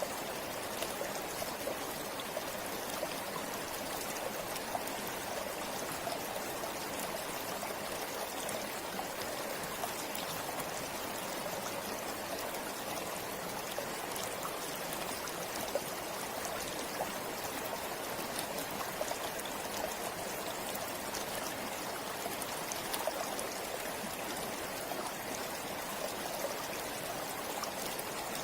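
River water flowing and splashing over rocks, a steady rushing with many small trickles and splashes.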